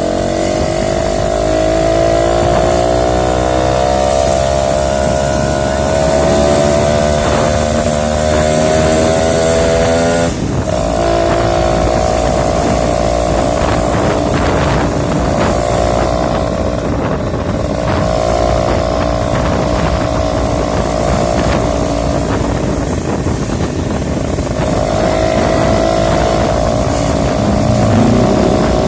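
Suzuki Tornado motorcycle engine running under way. Its note climbs steadily for about ten seconds, drops sharply like a gear change, then holds an even pitch with a few brief dips.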